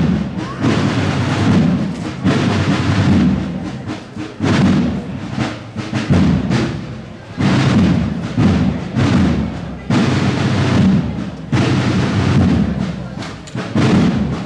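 Music with heavy drum beats: loud strokes repeating every second or two.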